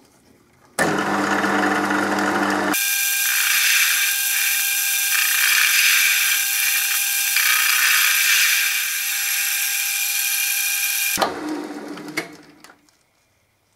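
Metal lathe starts up with a low motor hum, then the tool facing a welded steel plate makes a loud, steady, high-pitched cutting noise with a ringing tone for about eight seconds. The cut ends and the lathe spins down to a stop, with a few clicks.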